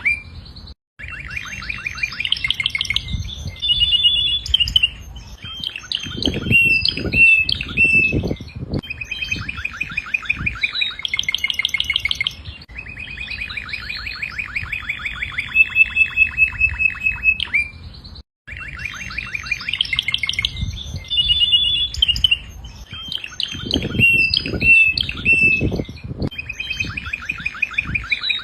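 Domestic canary singing a long song of rapid rolling trills and quick gliding notes, phrase after phrase. The song cuts out abruptly for an instant twice: about a second in, and about two-thirds of the way through.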